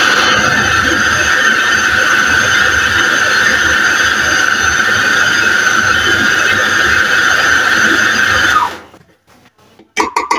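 Electric food processor running steadily with a high whine, chopping a thick lahmacun topping of minced meat, vegetables and pepper paste with added water. Just under nine seconds in it is switched off and winds down with a falling pitch.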